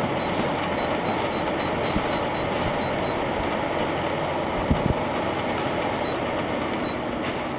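Steady fan-like whooshing of running machinery, with a run of short high-pitched beeps, about four a second, for the first three seconds and two more beeps near the end.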